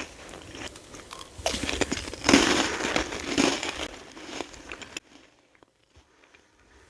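Close-up crunching and chewing of freeze-dried candy, a crackling crunch with several louder bites. It cuts off abruptly about five seconds in.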